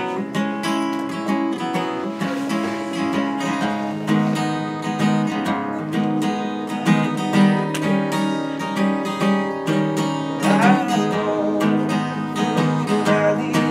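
Acoustic guitar strummed in a steady rhythm, chords ringing one after another.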